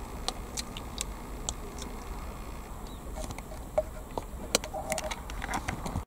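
Low, steady outdoor rumble with irregular sharp clicks and ticks scattered through it, several more of them and a few brief faint tones in the second half.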